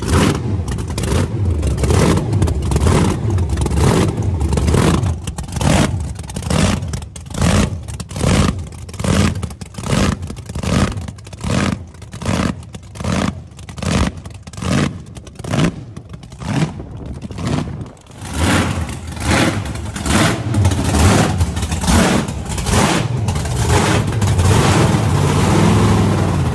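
Supercharged V8 race engine with an open scoop revving hard in a long series of quick, regular blips, about one and a half a second. Near the end it runs more steadily.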